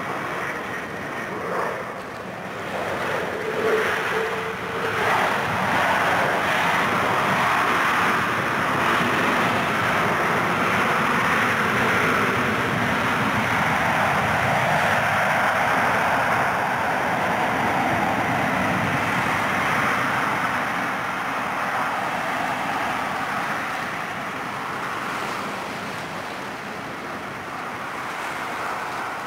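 Boeing 767 freighter's jet engines on the landing rollout: a broad roar that builds a few seconds in, holds strong, then fades away over the last several seconds as the engines are brought back from reverse thrust. Wind on the microphone.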